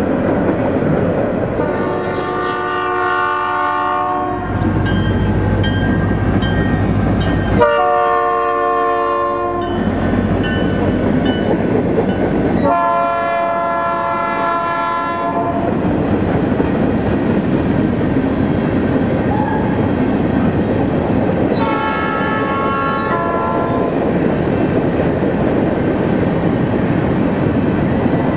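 Diesel freight locomotive's air horn sounding four blasts at a grade crossing, the last one shorter, over the steady rumble of the train rolling by. After the locomotives pass, the rumble and wheel clatter of the freight cars go on.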